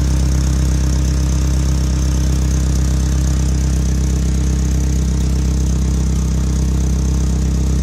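Toyota pickup engine idling steadily, with a fast, even pulsing of exhaust. The exhaust is leaking at the catalytic converter, which still leaks along its side despite an exhaust-wrap and screw patch.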